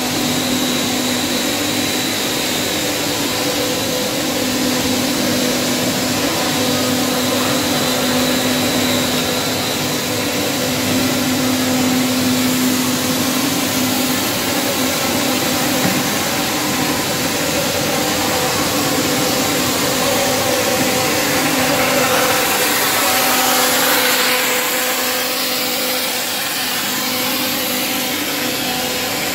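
Synthetic hair filament extrusion and drawing line running: a steady machinery drone over a broad hiss, with a constant hum. A thin high whine sits on top in the first part.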